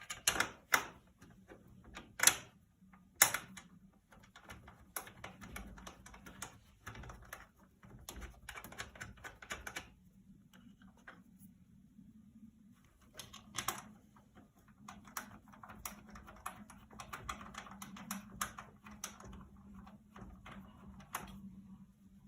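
Fixings being refitted by hand: three or four sharp clicks and knocks in the first few seconds, then long runs of rapid small clicking and rattling of parts and tools.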